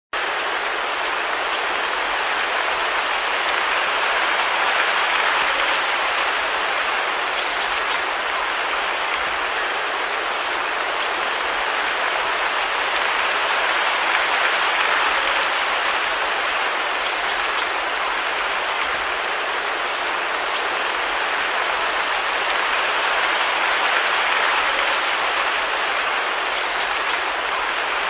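Waterfall pouring into a pool: a steady, even rush of falling water, with faint short bird chirps every couple of seconds.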